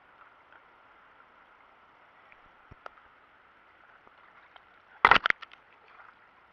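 A quick run of several sharp, loud knocks and clicks about five seconds in, over a faint steady hiss.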